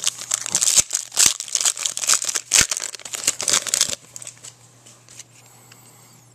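Foil trading-card pack wrapper crinkling and tearing as it is pulled open by hand: dense crackling that stops about four seconds in.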